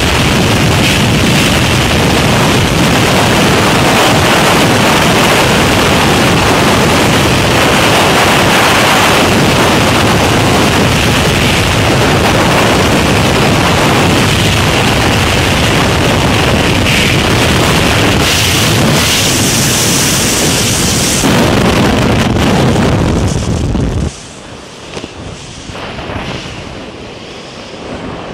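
Freefall wind buffeting a skydiver's camera microphone: a loud, steady rushing roar that drops suddenly to a much quieter, uneven rush about 24 seconds in.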